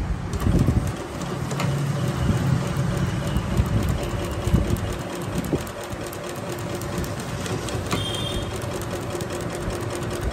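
Double-needle walking-foot industrial sewing machine (Jagking JK-4420D) stitching thick leather, its needle bar beating out a rapid, even ticking over the steady hum of the motor.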